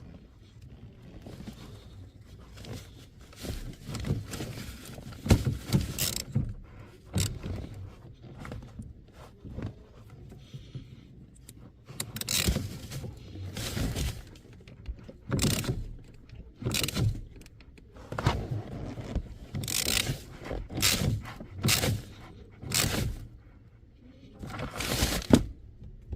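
Irregular knocks and scraping strokes, coming about once or twice a second in the second half, over a low rumble.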